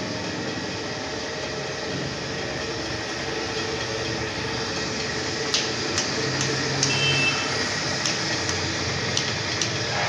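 A steady hum of background noise, with a few sharp clicks in the second half.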